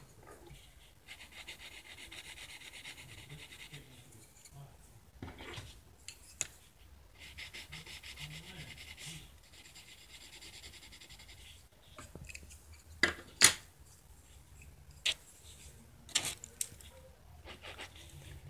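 Pencil scratching on sketchbook paper in quick back-and-forth shading strokes, in two spells. Several sharp clicks and taps follow in the second half, the loudest about halfway through.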